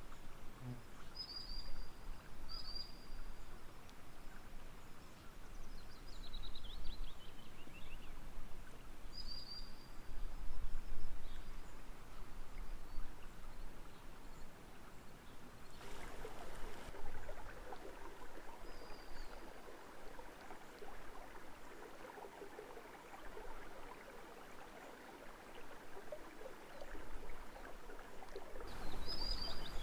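Water trickling with birds singing: short high chirps every few seconds and a falling run of notes, the water growing louder from about halfway. A low rumble comes and goes underneath.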